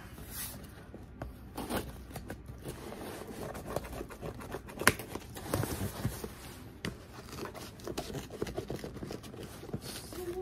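Gift packaging being opened by hand: paper or cardboard tearing and crinkling, with irregular small clicks and one sharp snap about five seconds in.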